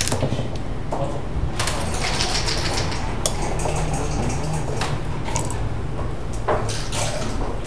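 Plastic backgammon checkers clicking and scraping on the board as a player picks them up and sets them down, a few separate clicks among short sliding sounds, over a steady low hum.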